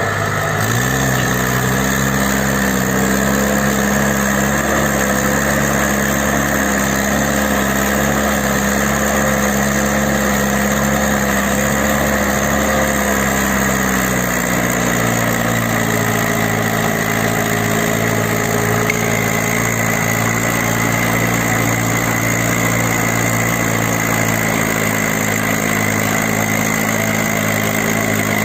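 Mahindra Arjun Ultra 555 DI tractor's four-cylinder diesel engine running. Its pitch rises just after the start and holds steady, then settles to a slightly different steady note about halfway through.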